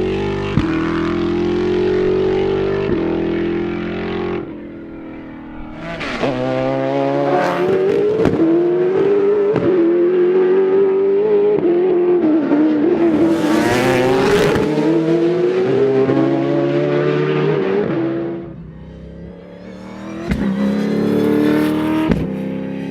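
Super5000 V8 open-wheel race car engine running at high revs. It lifts off about four seconds in, then accelerates hard and holds high, wavering revs for about ten seconds. It eases off, then climbs again near the end.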